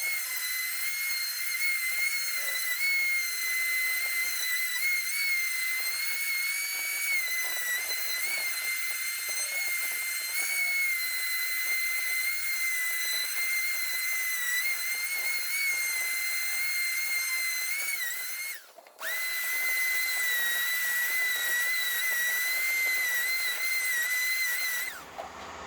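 Electric sander running with a steady high whine. It winds down and briefly cuts out about nineteen seconds in, starts again, and stops near the end.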